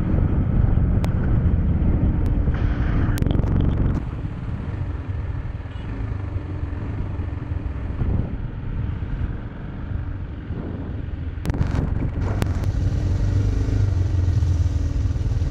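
Motorcycle engine running with wind rumbling over a microphone mounted on the bike. The sound drops about four seconds in as the bike slows and turns off the road, then grows louder again near the end as it rolls to a stop, with a few sharp clicks.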